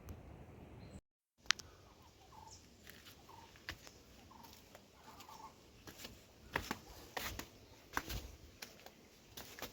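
Faint short clucking calls from a fowl among scattered sharp clicks and knocks, with a cut to dead silence about a second in.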